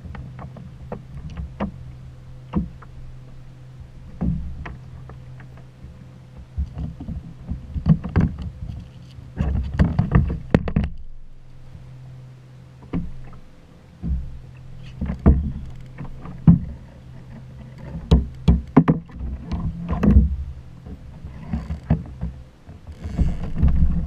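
Knocks and thumps of gear being handled against the hull of a plastic fishing kayak, many sharp hits coming in irregular clusters over a steady low hum.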